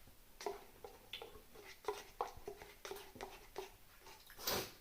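Eating sounds from a cup-noodle meal: a run of light clicks and taps, then a louder short rushing sound near the end.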